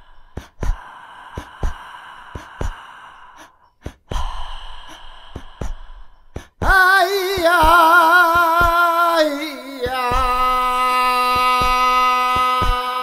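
Electronic flamenco music. Breathy sighing sounds play over sparse percussive clicks. About six and a half seconds in, a male voice cuts in loud with a wavering, flamenco-style wailing cry, then drops to a long held lower note over a ticking beat.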